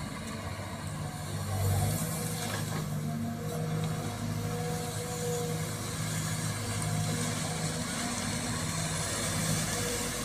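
Sumitomo hydraulic crawler excavator's diesel engine running steadily as it swings and digs with its bucket in mud and water, with a short swell in loudness about two seconds in.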